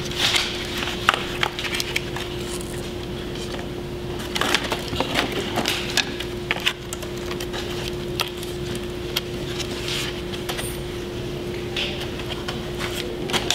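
Foam board pieces being handled and pressed together on a wooden workbench: irregular light taps, clicks and creaks, over a steady hum.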